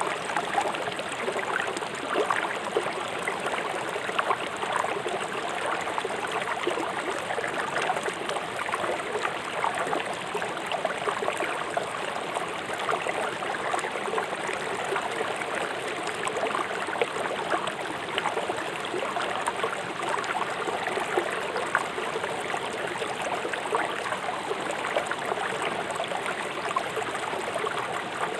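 River water flowing swiftly over stones, a steady babbling rush with fine splashing.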